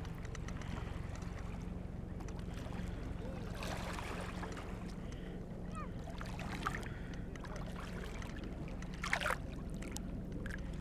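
Small lake waves lapping and sloshing right around the microphone at water level, with a louder splash about nine seconds in. A steady low rumble runs underneath.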